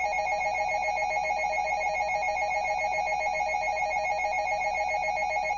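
Emergency Alert System attention signal: a loud, steady two-tone alarm (853 Hz and 960 Hz sounded together, giving a fast warbling beat), with a low hum under it, announcing that an alert message is about to be read.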